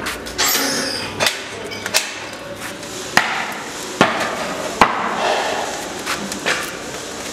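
Wood fire catching in a fireplace firebox: several sharp cracks and pops at uneven intervals over a rushing hiss of the burning kindling.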